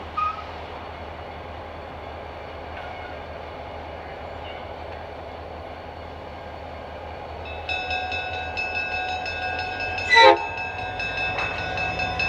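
Diesel freight locomotives rumbling low as they approach a grade crossing. About eight seconds in a bell starts ringing, and about ten seconds in the locomotive horn gives one short blast.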